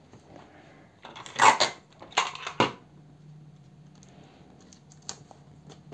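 Paper pattern pieces being handled on a table: two short bursts of paper rustling and crackling about a second and a half and two seconds in, then a few light taps.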